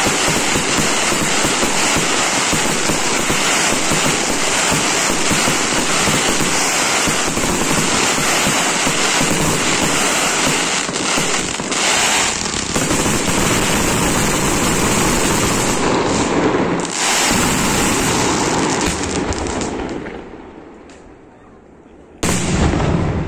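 Fireworks display: a dense, unbroken barrage of exploding shells and crackling effects, which dies away about twenty seconds in. After a short lull, one loud shell bursts near the end.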